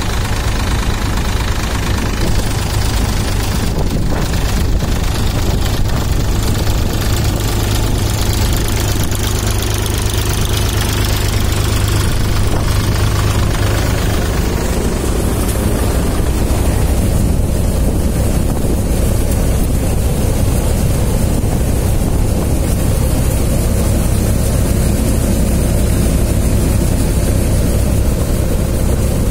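Tractor engine running steadily and driving a threshing machine as it threshes cumin: a loud, continuous mechanical drone with a deep hum and the thresher's whirring noise over it.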